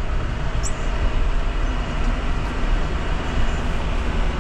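A farm vehicle running steadily with a low rumble as it is driven across the paddocks.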